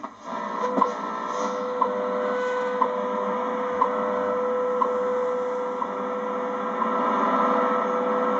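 Shortwave time-signal broadcast heard on a Ten Tec Paragon receiver: a steady tone with a short tick once every second, over band noise and hiss.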